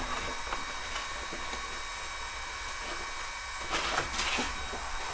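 Sanding belt being changed on a belt grinder: a few clicks and knocks of the belt and grinder being handled, clustered about four seconds in, over a steady machine hiss and hum.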